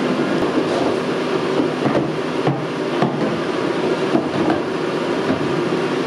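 Plastic ATV body panels being handled and refitted, with a few light knocks and clicks over a steady rushing background noise.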